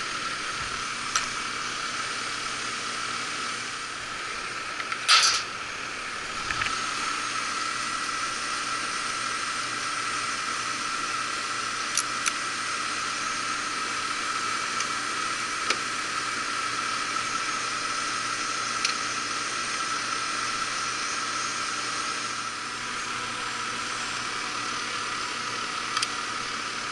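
Heat pump outdoor condenser unit running in the heating cycle: a steady whooshing hum from the compressor and condenser fan with a steady tone in it. A few light clicks, one louder about five seconds in.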